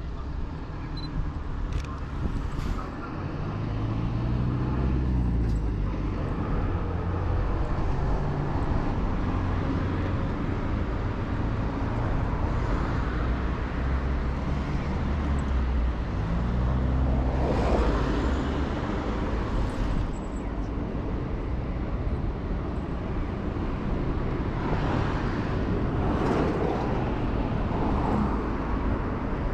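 Road traffic: motor vehicles running and passing, their engine pitch rising and falling a couple of times.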